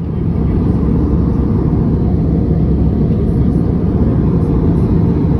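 Steady rushing engine and airflow noise inside a jet airliner's cabin in flight, rising to full level within the first moment.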